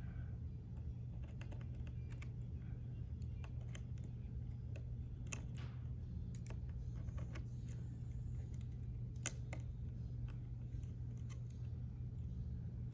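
Faint, scattered small clicks and taps of fingers and a small tool on a laptop's open plastic chassis while the Wi-Fi card's tiny antenna connectors are being fitted, over a steady low hum.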